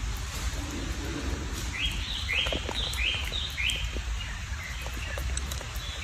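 About six short, high chirps in quick succession, starting about two seconds in and lasting about two seconds, over a steady low rumble.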